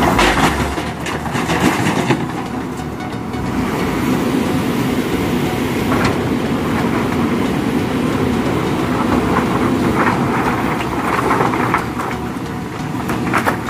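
A heavy vehicle engine running steadily, with some rattling clatter.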